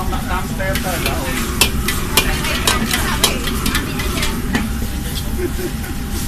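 Food sizzling in a hot pan as it is stir-fried, with a metal spatula clinking and scraping against the pan at irregular moments.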